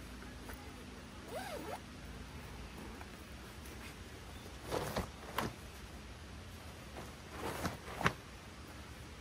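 Rustling and swishing of a bulky synthetic-fabric bundle being pulled out of a van's cargo area and gathered up, in two short bursts of handling about halfway through and near the end.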